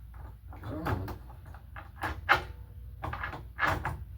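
Door hardware being worked: a few sharp clicks and knocks, the loudest a little after two seconds in.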